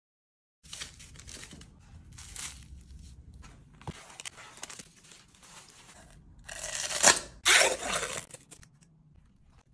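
Plastic wrapping crinkling as it is pulled out of a cardboard box, then the foil seal of a Nutella jar tearing as it is peeled off, the loudest part of the sound, about two-thirds of the way in.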